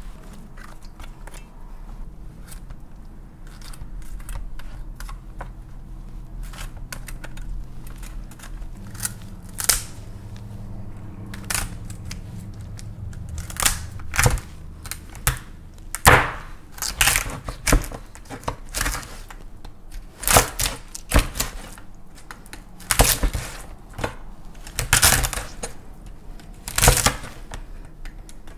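A knife cutting through king crab leg shells on a cutting board: irregular sharp cracks and crunches, sparse at first and coming thicker and louder from about halfway through.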